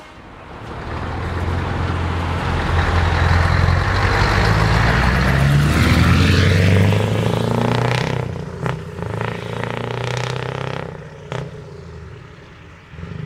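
Scania V8 truck engines. One accelerates past close by, its deep engine note building over the first several seconds. After a cut, another is heard more quietly as it pulls away, with a couple of sharp clicks.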